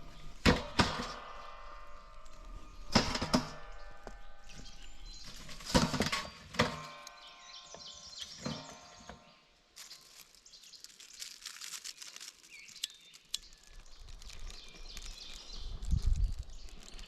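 Hard metallic clanks, three louder strikes a few seconds apart that each ring briefly, like metal cookware being handled. Quieter small knocks and rustles follow, with a few low thumps near the end.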